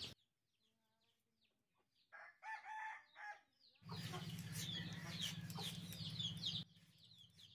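Chickens calling: repeated high, falling peeps, with a longer pitched call about two seconds in. A low steady hum sits under the peeps from about four seconds in and drops away near the end.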